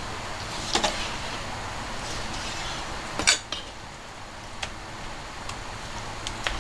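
A kitchen knife knocking against a cutting board a few times while raw chicken is handled, with a sharp double knock about a second in and the loudest knock about three seconds in, over a steady low hiss.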